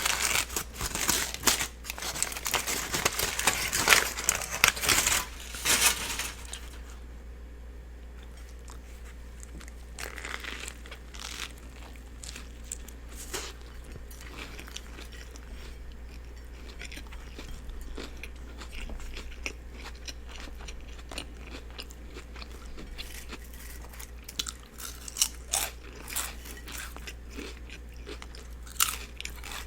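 Close-miked mouth sounds of a person eating a turkey and cheese sub with lettuce, tomato and onion. Loud crunching and crinkling for about the first six seconds, then quieter wet chewing with scattered clicks, which grows louder again near the end. A steady low hum runs underneath.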